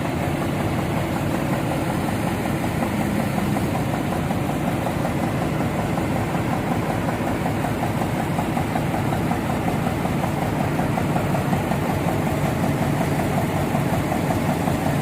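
Heavy engine aboard an excavator barge running steadily at an even pace.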